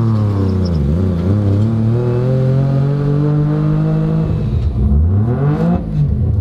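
Street-ported rotary engine of a turbocharged Mazda RX-7 pulling under acceleration with no boost. Its pitch dips about a second in, then climbs steadily for about three seconds. Near the end it drops, rises sharply once more and falls away.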